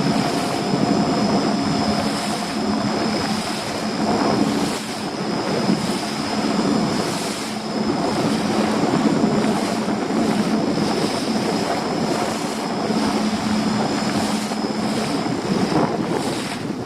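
Small fishing boat's motor running steadily as the boat motors along, with wind and water noise over it.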